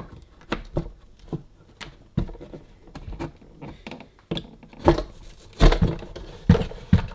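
Screwdriver undoing the screws that hold a suitcase record player's deck plate, with irregular small clicks and knocks of the tool, screws and plastic plate being handled. The loudest knocks come about five to seven seconds in.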